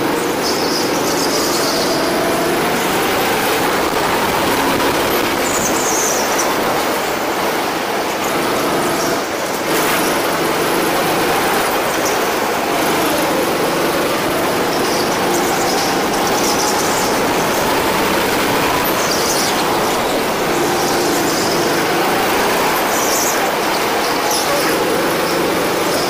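Go-kart engine running hard, its pitch rising and falling as the kart speeds up and slows for corners. Short high tyre squeals come several times through the turns.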